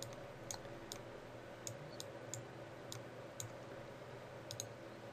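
Computer mouse buttons clicking about ten times at an uneven pace, two in quick succession near the end, over a faint steady hum.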